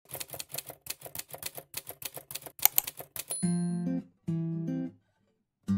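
A quick, even run of typing clicks, about six a second, lasting a little over three seconds. At about three and a half seconds in, acoustic guitar music begins with two strummed chords.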